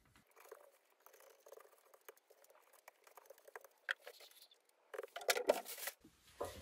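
Small paint roller spreading wood glue over a veneer panel, a soft sticky crackling patter. About five seconds in, a sheet of newspaper rustles louder as it is laid down.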